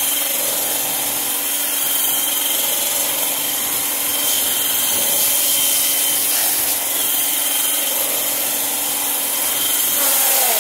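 Handheld immersion blender running steadily with a constant motor whine, its blade churning dry homemade laundry soap powder in a galvanized metal bucket.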